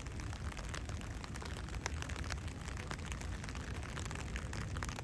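Raindrops ticking irregularly, over a steady low rumble of wind on the microphone.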